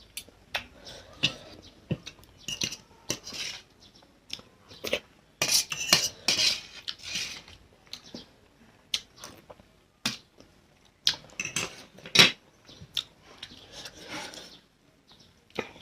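Eating sounds: cutlery clinking and scraping against a plate while instant noodles with fried egg are eaten, with mouth noises of eating. The sounds come as irregular sharp clicks and short scrapes, with a busier stretch about five to seven seconds in.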